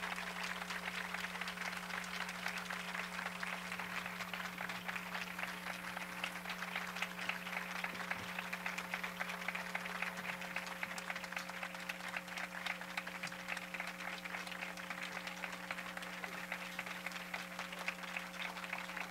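Audience applauding steadily: a dense, even patter of many hands clapping, over a low steady electrical hum.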